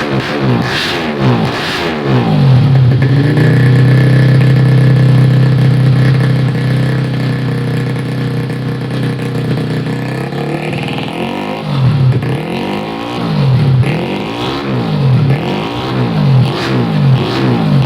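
Yamaha Jupiter motorcycle engine revving hard: the revs climb and are held high and steady for several seconds, then drop and the throttle is blipped up and down about once a second.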